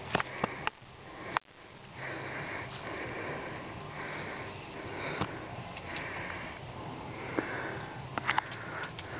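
A dog breathing and sniffing in a steady run of breathy huffs, about one a second, with a few sharp clicks mixed in.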